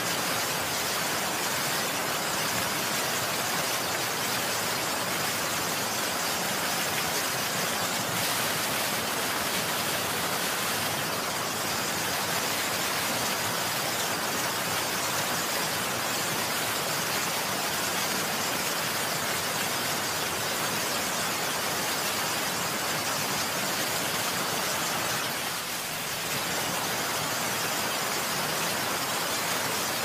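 Steady heavy rainfall, an even hiss that dips briefly near the end.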